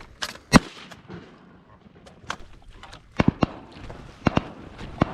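Shotguns firing at a duck in flight: a string of sharp shots, the loudest about half a second in, followed by more shots, some in quick pairs, over the next few seconds.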